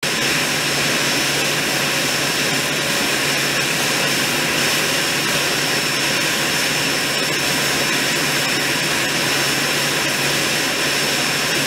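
Aircraft de-icing truck spraying de-icing fluid onto a wing, heard as a steady loud rushing hiss over a constant drone of machinery, with a thin high-pitched whine running through it.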